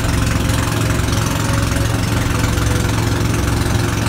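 Fishing boat's engine running steadily, with a constant hiss over it from the water spray jetting from the boat's side to draw tuna to the surface.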